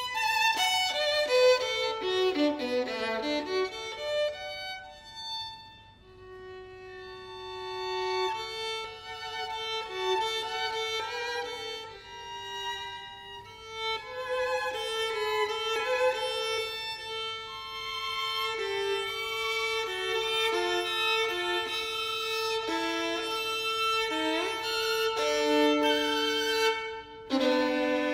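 Violin playing a classical piece: a fast descending run in the first few seconds, then slower, sustained notes, with one long held note near the end.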